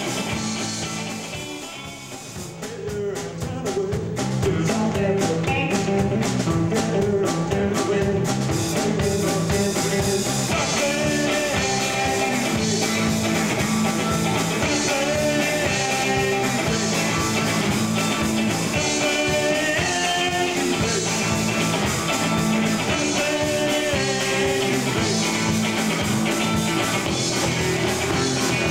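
Rock band playing loud electric guitars, bass and drums, with a voice singing over them. The sound thins out briefly about two seconds in, then the full band comes back in.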